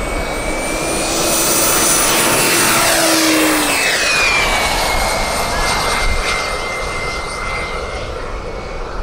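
Scale RC Pilatus PC-21 model's turboprop engine at take-off power: a turbine whine with propeller noise, growing louder as the plane lifts off and passes close by. Its whistle drops in pitch as it goes past about four seconds in, then fades as the model climbs away.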